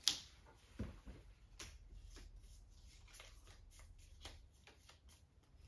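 Cards being handled and laid down on a tabletop: a sharp click at the start, a soft thump about a second in, then a scatter of light taps and rustles.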